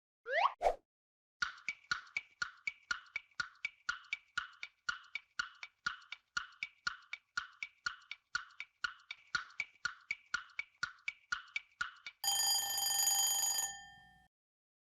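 Quiz countdown timer sound effect: a short rising swoosh, then steady clock-like ticking at about four ticks a second for some ten seconds, ending in a brief bell ring as time runs out.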